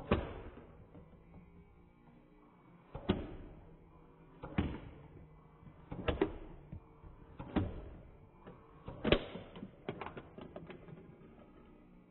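Foam Nerf darts striking Lego bricks and a minifigure: six sharp clacks about a second and a half apart, each with a short ringing tail, then a quick flurry of lighter clicks near the end.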